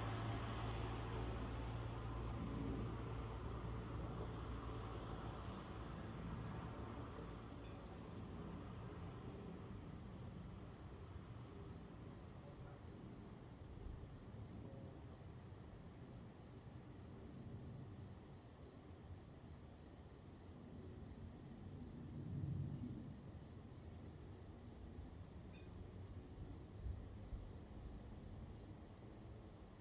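Crickets chirping in a steady, fast-pulsing trill, faint throughout. A low rumble fades away over the first several seconds, and a brief low swell rises and falls about two-thirds of the way through.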